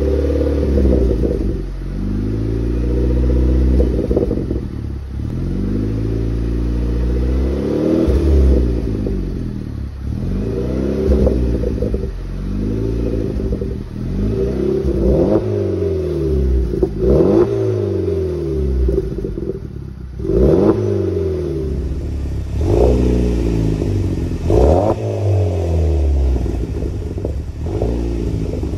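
Opel GT's turbocharged 2.0-litre four-cylinder engine, parked, revved again and again through an aftermarket quad-tip exhaust. Each blip rises in pitch and falls back to idle, about a dozen times.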